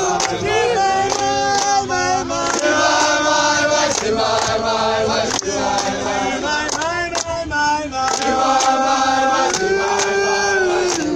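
A crowd of supporters singing together in chorus, mostly men's voices holding long notes, with handclaps throughout.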